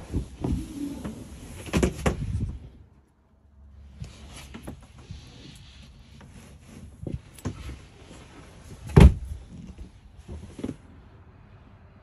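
Knocks, bumps and rustling from handling a trailer's lift-up bed platform and its under-bed storage, with one loud sharp thump about nine seconds in.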